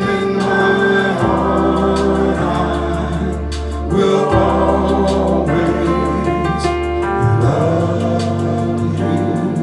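Gospel choir singing with organ accompaniment: held notes and chords over a steady organ bass, the chord changing every second or so.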